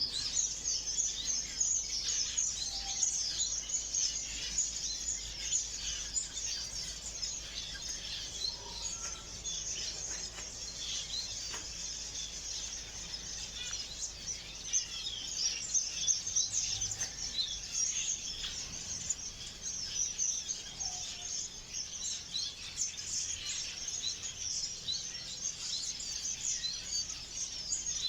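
A flock of small ornamental aviary birds chirping, many short high calls overlapping without a break.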